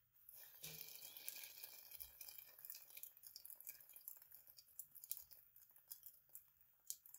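Flipped naan dough landing in a hot oiled cast iron pan with a soft thud about half a second in, then sizzling faintly with scattered crackles that thin out toward the end.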